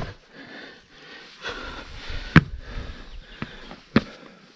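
A hiker breathing hard while scrambling up a pile of large boulders, with several sharp knocks on the rock, the loudest about halfway through.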